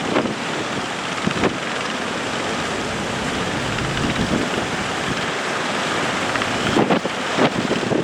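Strong wind buffeting the microphone over surf and waves, with a few sudden thumps about a second and a half in and near the end.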